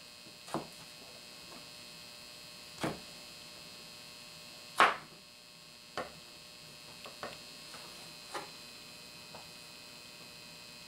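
Utility knife blade striking a plastic cutting board as potato strips are sliced into julienne: irregular single knocks, the loudest about five seconds in, over a steady electrical hum.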